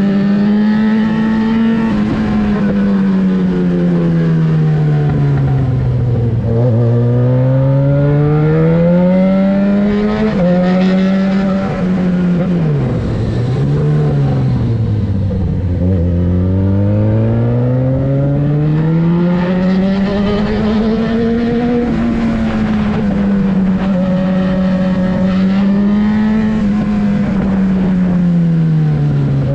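Yamaha XJ6's 600 cc inline-four engine running loud through a LeoVince exhaust with the dB-killer removed. The engine speed falls and rises several times, with a few quick drops in pitch partway through.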